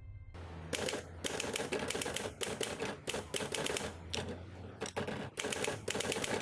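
Typewriter being typed on: keys striking in quick, irregular runs of clacks broken by short pauses.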